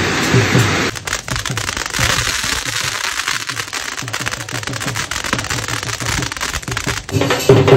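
Ground fireworks, spark fountains and crackling spark-throwers, going off: a dense crackle of small sharp pops over a hiss. For about the first second a low, even throbbing runs under it, then cuts off.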